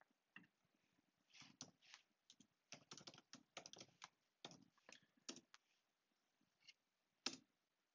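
Faint typing on a computer keyboard: a quick run of keystrokes in the middle, then a few single clicks near the end.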